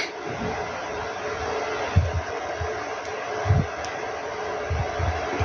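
Steady hiss of rushing air, with a few soft low knocks about two, three and a half and five seconds in.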